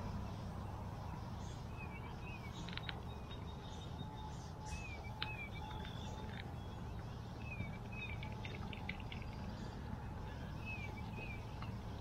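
A songbird singing a short chirping phrase, repeated four times about every three seconds, over a steady low background noise.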